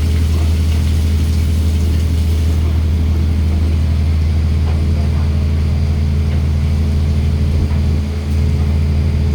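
A fishing boat's engine running steadily, a loud, even low hum.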